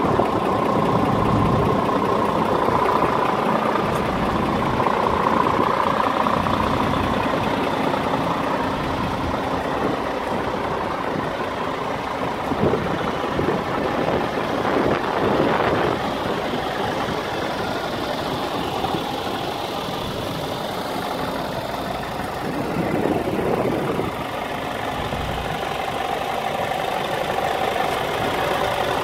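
Scania R490 tractor unit's 13-litre inline-six diesel idling steadily.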